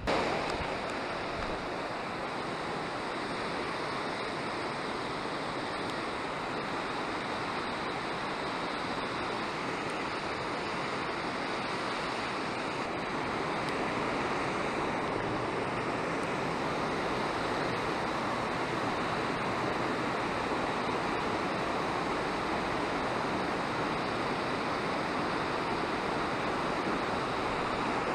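Whitewater rushing down a river cascade: a steady noise of running water that grows slightly louder about halfway through.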